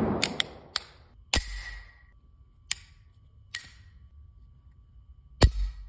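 Beretta 92XI pistol being handled: a scrape as the slide is worked at the start, then a series of sharp metal clicks and clacks from the gun's parts. A heavier clack about a second and a half in leaves a faint metallic ring, and the loudest clack comes near the end.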